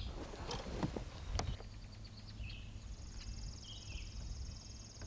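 A high, buzzy trill of rapid pulses from a bird or insect, sounding from about three seconds in, over a steady low rumble. A few sharp knocks come in the first second and a half.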